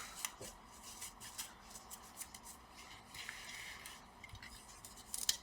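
Faint scattered clicks and light rustling of hands handling small laptop parts during reassembly.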